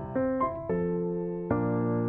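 Background music: a soft electric piano melody, a few sustained notes struck one after another.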